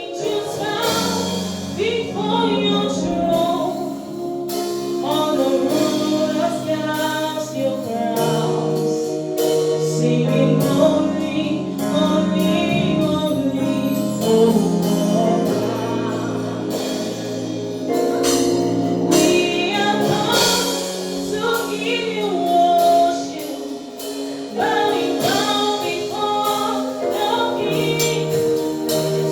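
A gospel choir singing with instrumental accompaniment, the voices holding and shifting chords over a steady beat.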